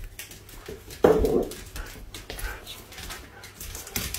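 A dog gives one short, loud cry about a second in, among light clicks and shuffling.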